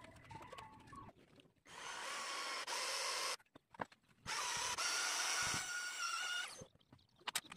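Cordless drill-driver running in two bursts of about two seconds each, with a steady whine, working the screws of a wooden handsaw handle.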